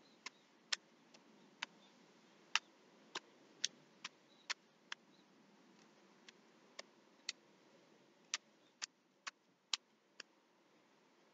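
Tarot cards being shuffled by hand: short, sharp card clicks about every half second, with a brief pause midway.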